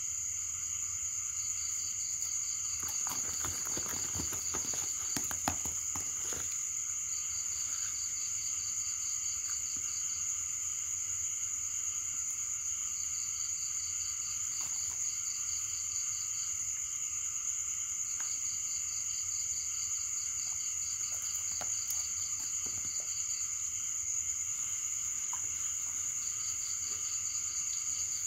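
Night chorus of insects and frogs: a steady high-pitched insect trill, with a pulsed call that repeats every five seconds or so. A few rustles and clicks about three to six seconds in as a cloth sack is handled.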